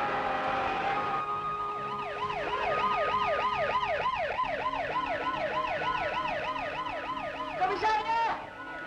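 Siren wailing in a fast up-and-down yelp, about three sweeps a second, starting about a second in over a steady tone; near the end it switches to quicker, higher sweeps.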